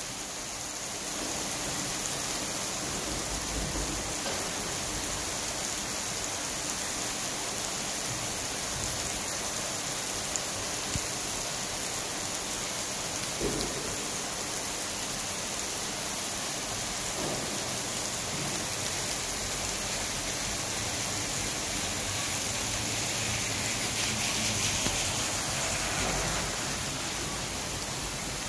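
Steady rain falling on a wet paved road and pavement, an even hiss of drops with a few faint ticks, a little louder about three-quarters of the way through.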